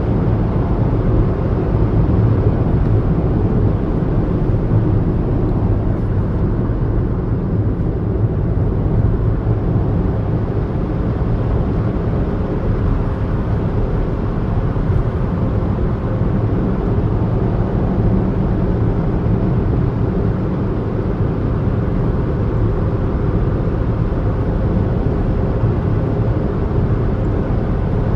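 Steady low rumble of a car being driven, engine and tyre noise heard from inside the cabin.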